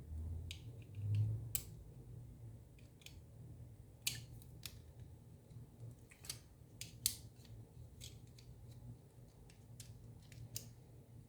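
Small sharp clicks and snaps, a dozen or so at uneven intervals, from the plastic parts and metal battery contacts of an Xbox controller being pressed and worked to clip into place.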